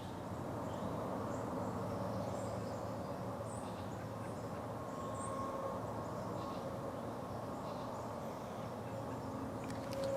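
Steady low rushing ambient noise, with a few faint, short, high bird chirps scattered through it.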